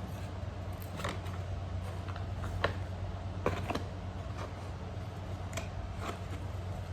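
Hands handling and opening light-stick packaging: scattered sharp clicks and small knocks of plastic and cardboard, the sharpest about two and a half seconds in and again just after three and a half, over a steady low hum.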